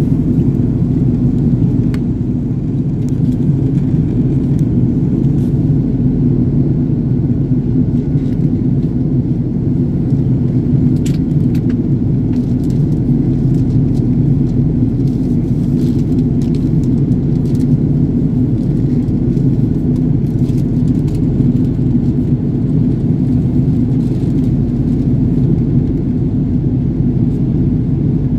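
Steady low roar of a jet airliner in flight, heard from inside the passenger cabin: engine and airflow noise holding even throughout.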